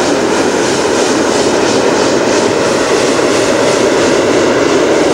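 Hot-air balloon's propane burner firing in a long, steady blast, heating the envelope for lift-off.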